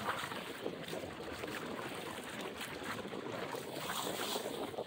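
Choppy river water washing and splashing against the hull of a felucca under sail, a steady rush with occasional splashes, with wind on the microphone.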